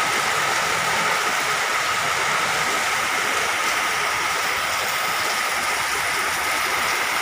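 Heavy rain and a steady stream of water pouring from a rooftop drain spout, a constant rushing splash.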